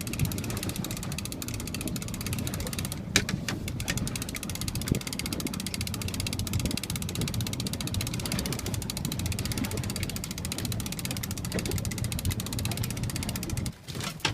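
A boat's motor running steadily with a fast, even beat, a few sharp knocks about three to five seconds in, stopping abruptly near the end.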